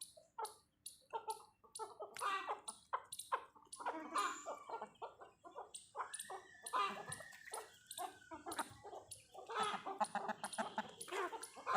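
Chickens clucking as they peck at food, with many short sharp taps throughout and a run of short arching clucks about halfway through.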